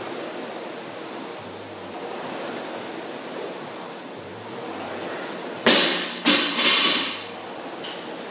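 Concept2 rowing machine's air-resistance flywheel whooshing steadily, swelling and easing with each stroke about every two and a half seconds. A little past halfway, three loud rushing bursts of noise cut across it.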